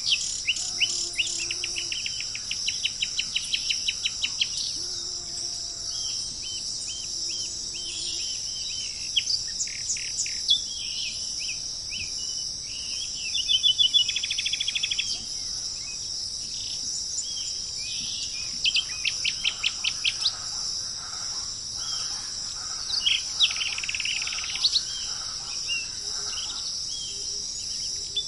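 Wild birds chirping and calling in quick series of sharp notes, with a fast trill midway, over a steady high-pitched drone of insects such as crickets.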